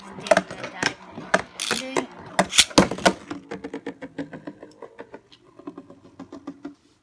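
Spinning Beyblade tops clashing in a plastic stadium with sharp clicks and knocks, then a quicker, fading rattle of lighter clicks.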